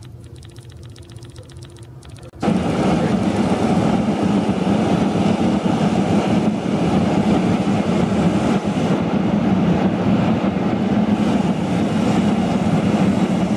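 A quiet hum, then about two and a half seconds in a loud, steady engine noise cuts in abruptly and runs on with a strong low drone.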